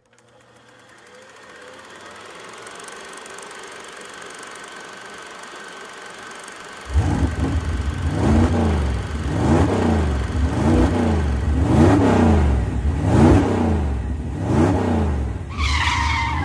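An engine revved again and again, its pitch rising and falling about once every second and a bit. It cuts in suddenly about seven seconds in, after a quieter steady hum that slowly grows. Near the end a higher tone joins in.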